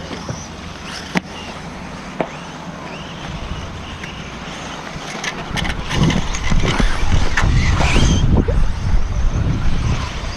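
Radio-controlled cars racing on a dirt track, their motors whining up and down, over a steady noisy background with two sharp clicks early on. From about six seconds in it gets louder, with heavy low rumble like wind buffeting the microphone.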